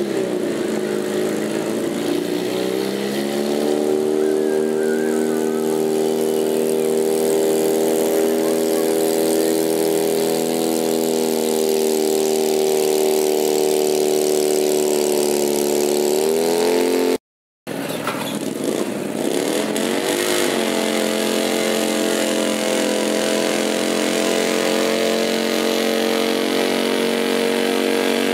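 Garden pulling tractor engine running under load, dragging a weight-transfer sled, pitch holding high and steady and rising near the end of the pull. After a sudden cut partway through, a second garden tractor's engine revs up and holds a steady high pitch as it pulls.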